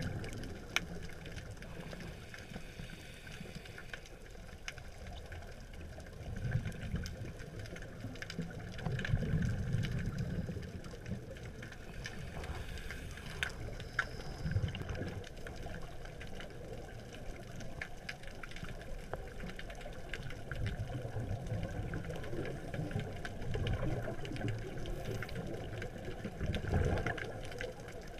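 Underwater sound picked up by a dive camera in its housing: a low rumble of moving water that swells every few seconds, with scattered faint clicks.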